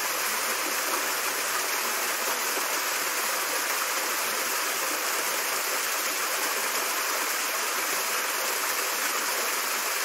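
Water cascading down over rocks in a steady, even rush.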